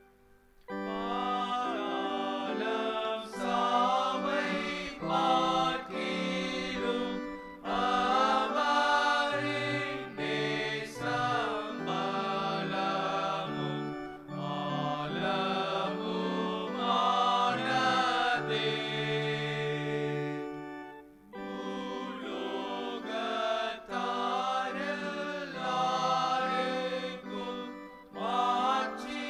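Church congregation singing a Tamil hymn together with organ accompaniment, the voices pausing briefly between lines.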